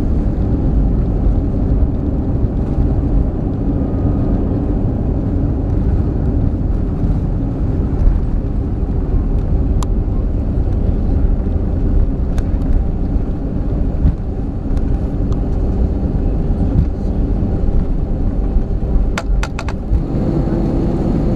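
Airbus A320 cabin noise heard at the window seat: the steady rumble and hum of its CFM56 turbofan engines and airframe as the aircraft taxis. A few sharp clicks come about halfway through and near the end.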